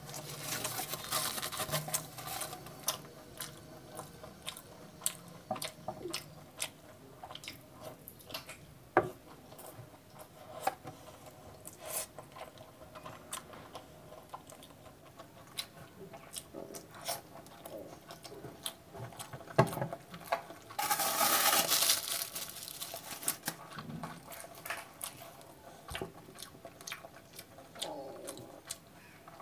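Close-miked eating sounds: chewing with many short wet clicks of lips and mouth, as puri and curry are eaten by hand. A louder, rustling crackle lasts about a second and a half about three-quarters of the way through.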